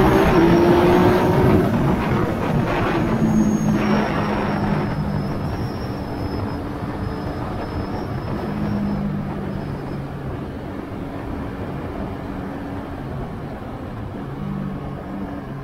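Yamaha Tracer 900 GT's inline three-cylinder engine heard from on board, pulling up in pitch for about a second and a half, then easing off into a lower, steady note while the wind rush over the bike fades as it slows through a corner.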